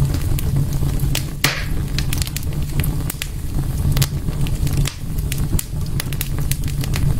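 Wood fire in a fireplace crackling, with frequent sharp pops over a steady low rumble of the flames. A louder pop with a short hiss comes about a second and a half in.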